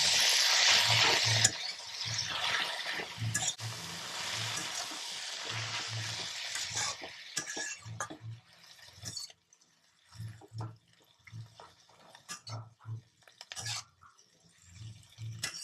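Leafy greens and potato pieces stir-frying in a kadai: a loud sizzle with a metal spatula tossing and scraping through them. The sizzle dies away about seven seconds in, leaving scattered scrapes and knocks of the spatula against the pan.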